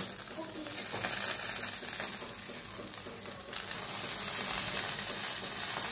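Marinated chicken pieces sizzling on a barbecue grill rack, a steady high hiss of fat and juices cooking, which grows louder a little past halfway.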